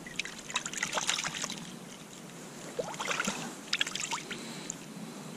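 Small wet splashes and sharp clicks in two short clusters, from water and a freshly caught roach being handled at an ice-fishing hole.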